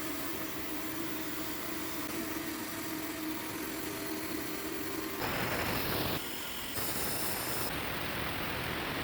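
Steady machine noise with a low hum and hiss, changing abruptly about five seconds in and again a few times after.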